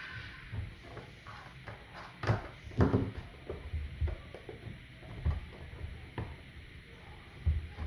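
Irregular clicks and knocks of the plastic housing and parts of a ResMed AirSense 10 CPAP machine being handled during reassembly, the loudest knocks a little over two and three seconds in.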